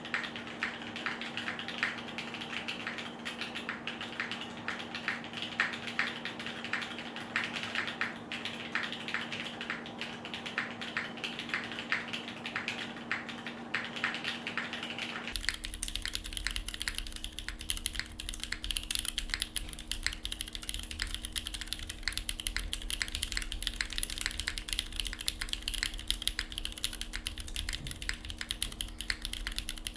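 Continuous fast typing on the alpha keys of a gasket-mounted SingaKBD Kohaku r2 mechanical keyboard with an aluminium plate. It has Cherry MX Hyperglide Black housings with Kailh Razer Orange stems and GMK Panels keycaps, giving a dense stream of key clacks. About halfway through, the tone changes abruptly as the pickup switches from the camera's microphone to a closer Logitech Yeti Nano. From there on the keystrokes carry more low thud and crisper top end.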